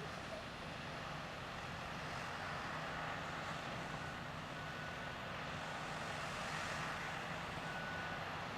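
Diesel engines of heavy earthmoving machines running steadily. A faint high tone comes and goes over the second half.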